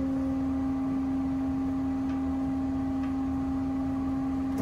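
Hydraulic pump of a Hyd-Mech S-20A Series II horizontal bandsaw running with a steady hum as the saw head lifts.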